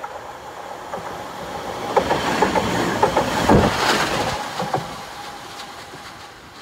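Tatra tram passing by, its wheels clicking over rail joints. The sound builds to a peak about three and a half seconds in, then fades away.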